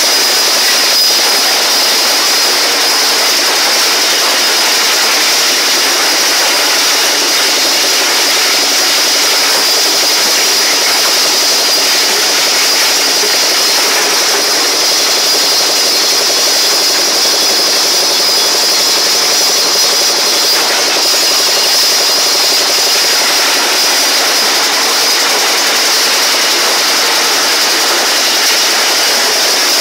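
Motorised ice-crushing machine running and grinding a block of ice into crushed ice: a loud, steady grinding noise with a high edge.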